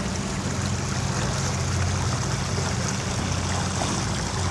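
Water rushing steadily along the hull of an all-electric passenger ferry under way, over a low steady hum from the boat.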